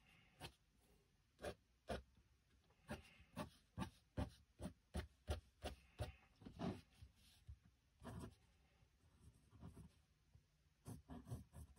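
Pencil drawing on sketchbook paper: a faint run of short, irregular scratching strokes, roughly one or two a second.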